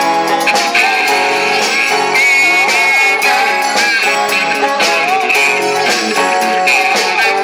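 Live rock band playing, with electric guitars to the fore and a lead line of held, bending notes over the band.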